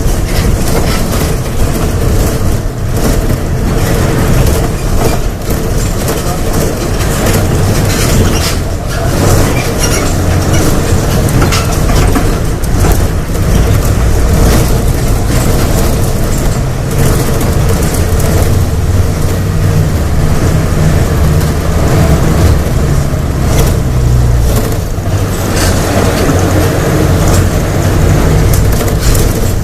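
Volksbus 17.230 OD diesel bus engine pulling hard at high revs, with a loud low drone that shifts pitch a few times. Short clattering knocks and rattles sit over it.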